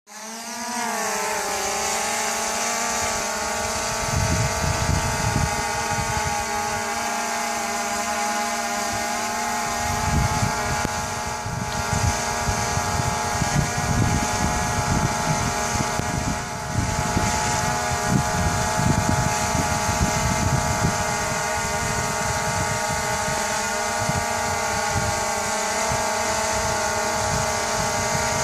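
DJI Phantom 2 quadcopter's motors and propellers humming steadily, rising in pitch in the first second as they spin up. Irregular low buffeting on the microphone from about four seconds in.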